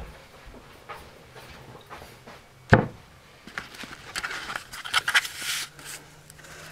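Handling noise: a single sharp knock nearly three seconds in, then a couple of seconds of rustling as the camera is picked up and moved, over a faint steady hum.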